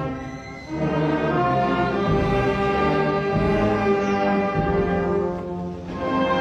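Orchestral music with brass and strings playing long held chords, dipping briefly about half a second in and again near the end.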